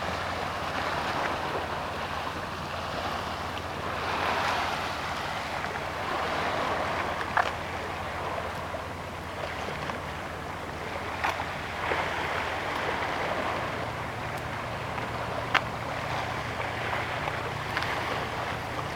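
Wind and small waves washing against a stone seawall: a steady rushing that swells and fades every few seconds, over a low steady hum, with a few sharp clicks.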